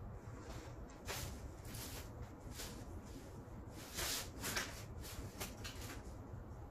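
A large sheet of corrugated cardboard being handled and slid across a tatami mat: a few short, irregular scraping and rustling strokes, the loudest about four seconds in.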